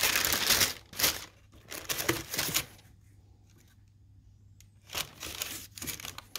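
Tissue paper in a shoebox rustling and crinkling in several short bursts as hands push it aside and handle a sneaker, with a quiet pause of about two seconds in the middle.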